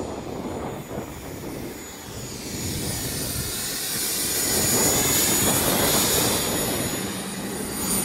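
Turbine helicopter running on the ground with its rotor turning: a steady high turbine whine over rotor and engine noise, swelling louder about halfway through.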